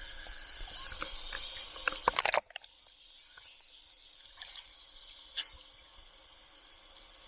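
Water noise picked up by a camera in the sea while snorkeling: a steady hiss with scattered sharp clicks, a quick burst of loud clicks about two seconds in, then a sudden drop to a much quieter stretch with only a few isolated clicks.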